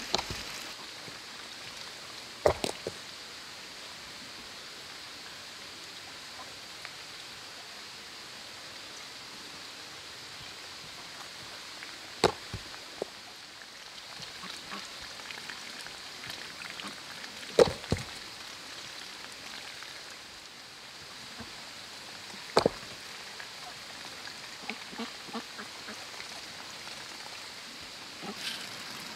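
Rocks dropping onto a growing pile of stones on bare earth, each landing with a sharp knock, about five times spaced several seconds apart, over steady background hiss.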